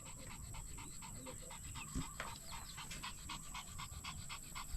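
A dog panting quickly and rhythmically, about six or seven breaths a second, faint.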